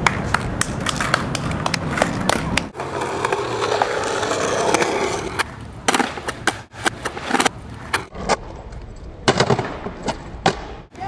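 Skateboard wheels rolling on concrete, with repeated sharp clacks and impacts of the board against the ground.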